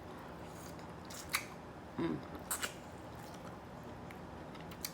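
Corn on the cob being bitten and chewed close to the microphone: a few crisp crunches and snaps of kernels, about four in the second half.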